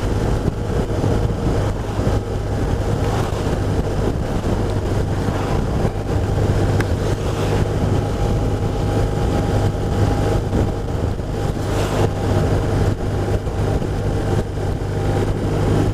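BMW R1200RT boxer-twin engine running steadily at a constant cruise just under 40 mph, with a steady low drone and a wash of wind and road noise.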